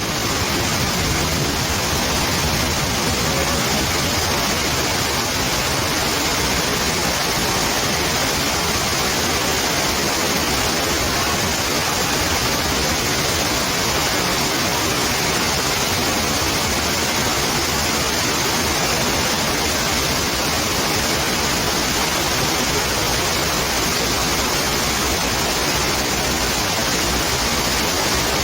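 Heavy thunderstorm rain and rainwater flowing over an old tree trunk: a loud, steady rush of water.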